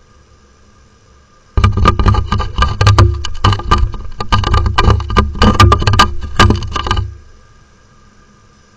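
A peregrine falcon attacking an Axis P3364 dome security camera: a rapid run of loud knocks and scrapes against the camera housing, picked up close with a low rumble. It starts about a second and a half in and stops sharply about two seconds before the end.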